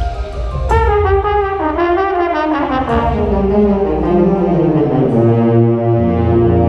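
Brass ensemble playing: a loud entry just under a second in, a line that falls in pitch over the next couple of seconds, then held chords with low bass notes coming in near the end.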